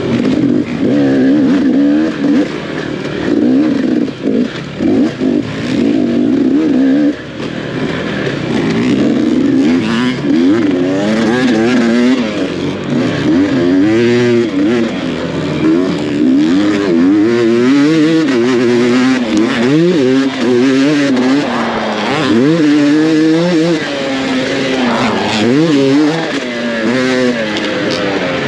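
Dirt bike engine under hard riding, its pitch rising and falling constantly as the throttle is opened and chopped.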